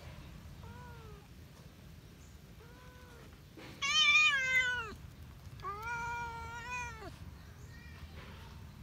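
Tabby cat meowing four times: two short, soft meows, then two louder, longer meows, the loudest about four seconds in.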